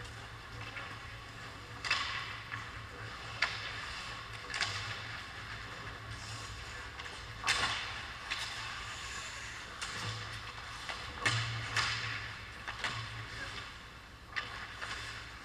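Ice hockey play: skate blades scraping on the ice, with irregular sharp clacks of sticks and puck every second or two, over a low steady hum.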